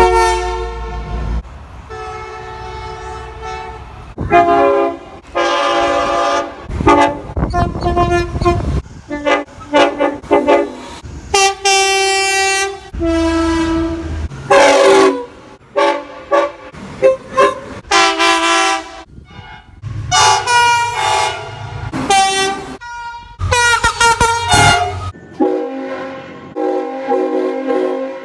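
Locomotive air horns sounding in a quick series of separate clips: chords of several steady notes, some short toots and some held for a second or two, each clip starting and cutting off abruptly, with a low rumble of the train under some of them.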